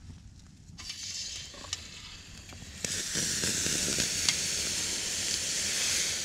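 Solo Stove wood fire sizzling and hissing as a cold pot is set down on its flames and moisture on the pot flashes to steam. The hiss begins faintly about a second in and turns loud about three seconds in.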